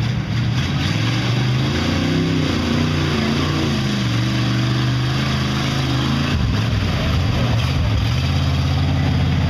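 Engine of a lifted mud truck on tractor tyres revving hard as it spins circles through a mud pond, its pitch rising and falling. About six seconds in the revs drop briefly, then it settles into a steadier run.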